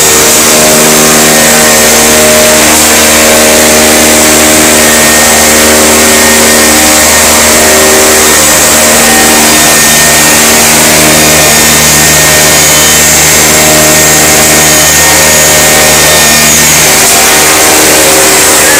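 Powder-processing machinery running loudly and steadily: a grinding mill and its motors giving a constant whirring rush, with steady hum tones over it.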